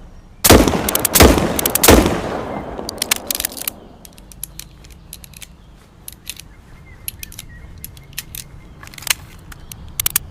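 Smith & Wesson Model 500 revolver (.500 S&W Magnum) fired three times in quick succession, about two-thirds of a second apart, each shot trailing a long rolling echo. Scattered faint clicks follow.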